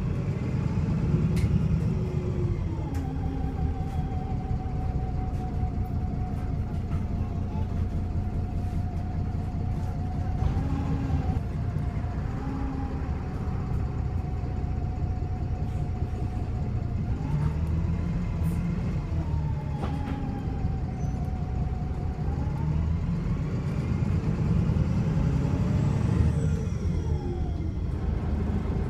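VDL SB200 bus's diesel engine running under load through its Voith automatic gearbox, with a steady whine that steps up and down as the bus speeds up and slows, and a few sharp clicks. The engine is misfiring, which gives it a rough, uneven note.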